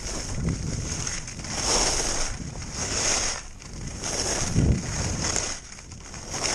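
Skis scraping and carving over packed snow, the hiss swelling and fading with each turn, with wind buffeting the camera's microphone.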